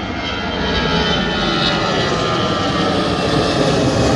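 Boeing 757 jet engines running at high power, a steady roar with a high whine over it that slowly grows louder.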